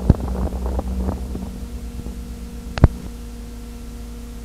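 Steady electrical hum on the recording, with the tail of some music dying away in the first second or so and two sharp clicks, one at the very start and one nearly three seconds in, at a break in the soundtrack.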